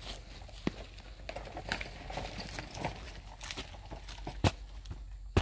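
Steel shovel digging into soft, loose earth: soil crunching and scraping under the blade, broken by several sharp knocks, the loudest near the end.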